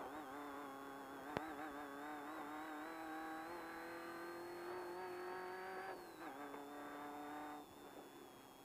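Off-road race car's engine pulling under load, heard from inside the car: its pitch climbs slowly, then falls at a gear change about six seconds in. Near the end the engine eases off and the sound drops in level, with a single click early on.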